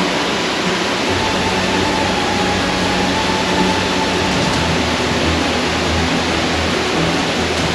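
Waterfall: a steady, loud rush of falling water, with a deeper rumble coming in about a second in.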